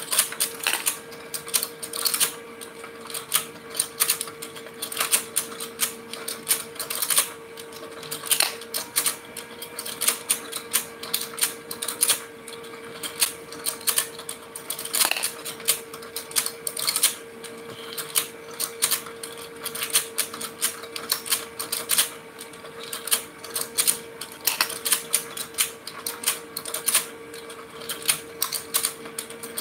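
Toy fishing game running: a steady motor hum under rapid, irregular plastic clicking from the turning fish pond.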